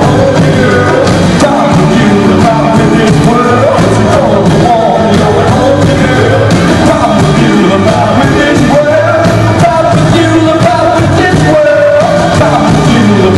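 Live rock band playing loudly, with a male singer at the microphone over keyboard and hand drums.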